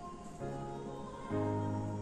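Background music: held notes that change every second or so, with a deeper bass note coming in a little past halfway.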